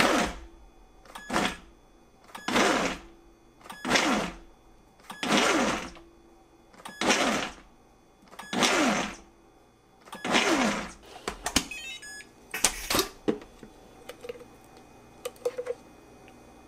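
Kuvings SV500 high-powered blender pulsed about eight times, each short burst of the motor and blades chopping tomato pieces and then winding down in pitch. A few clicks and knocks follow near the end.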